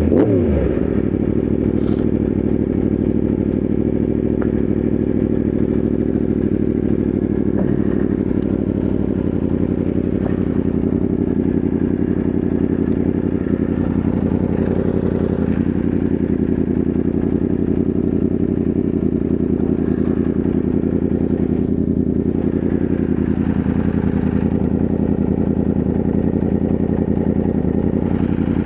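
Yamaha R1M's crossplane inline-four engine idling steadily, its revs falling away right at the start.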